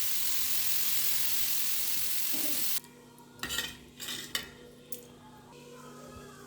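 Chopped guava with salt sizzling as it roasts in a pan on a gas stove: a steady hiss that cuts off abruptly a little under three seconds in. Then a few short clinks and scrapes of a utensil against the metal pan.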